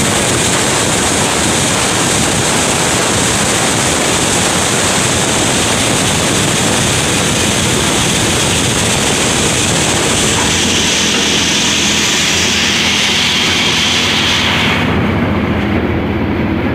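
Tractor-driven chickpea thresher running loud and steady, with threshed chickpeas pouring down its outlet chute. About fifteen seconds in, the high hiss drops away and the lower machine noise carries on.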